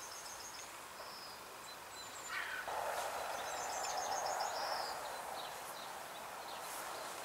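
Faint bird chirps in the background: short repeated high notes near the start and again around three to four seconds, with one gliding call a little after two seconds. A soft, steady noise swells up about three seconds in and eases off around five seconds.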